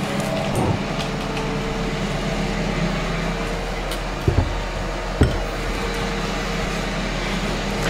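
Ninja Foodi Max multicooker running in Air Crisp mode, its fan giving a steady hum. Two short knocks come about four and five seconds in.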